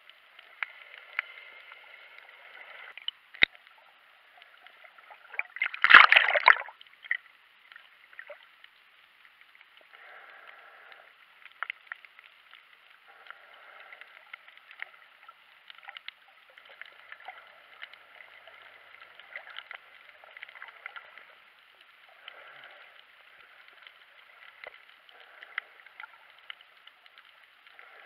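Underwater sound picked up by a camera in a waterproof housing: muffled water noise with scattered small clicks. About six seconds in there is one loud rush of water lasting about a second.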